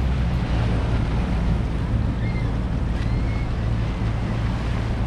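Outboard motor on a small aluminium jon boat running steadily underway, a low hum under the rush of water along the hull and wind noise on the microphone.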